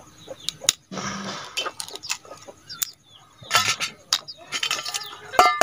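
Small snail shells clicking and cracking as they are handled and broken open, with a ringing clink from a stainless steel bowl near the end.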